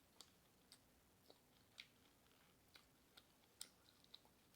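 Faint chewing of Doritos nachos: about nine sharp, irregularly spaced crunches and mouth clicks.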